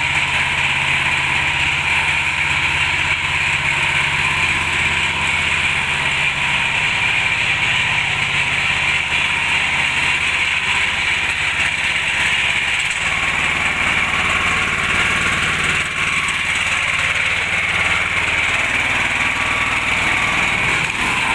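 Honda GX390 single-cylinder four-stroke engine of a double-drum vibratory baby roller running steadily, its note shifting twice, about six seconds in and about thirteen seconds in.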